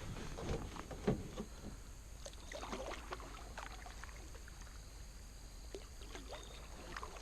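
Kayak paddle strokes in the water, with splashing and dripping from the blades, and a sharp knock about a second in.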